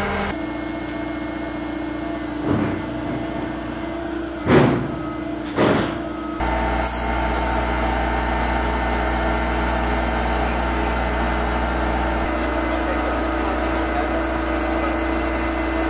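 Steady engine-driven machinery droning, with three sharp knocks between about two and six seconds in, the middle one the loudest. The drone changes tone abruptly about six seconds in.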